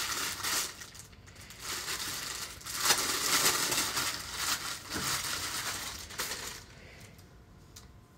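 Clear plastic packaging bag crinkling and rustling in several bursts as it is pulled open by hand and a white garment is drawn out; it goes quieter for the last second or so.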